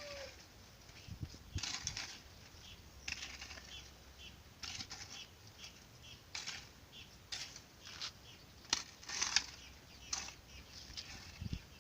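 Birds giving short, scattered chips and rustles, about a dozen brief strokes at irregular intervals.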